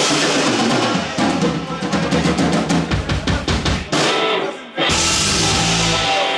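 Live rock band with electric guitars, bass and drum kit playing a song out: a run of rapid drum hits from about a second in, a brief break, then a last held chord that stops just before the end.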